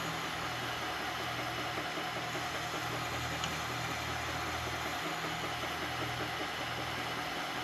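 Milling machine spindle running steadily, its end mill slowly feeding down into a carbon fiber handguard: a constant low hum with an even hiss above it.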